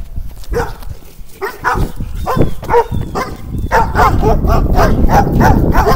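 Dogs barking aggressively at a person they are rushing, the barks coming faster and more often from about two seconds in, with a steady low rumble underneath.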